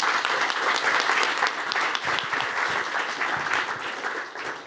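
Audience applauding at the end of a talk, the clapping dying away near the end.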